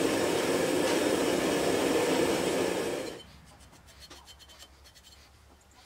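A loud, steady rushing noise cuts off abruptly about three seconds in. After it come faint scratching and light clicks of a paint marker being drawn across the steel axe head on the anvil.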